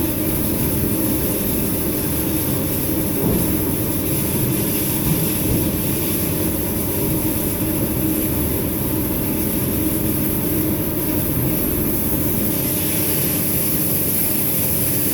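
Waterjet cutter's 0.15 mm nozzle firing water at 2750 bar through a frozen cake: a loud, steady hiss with a low rumble underneath. It swells slightly a couple of times, as the jet reaches the cake's border.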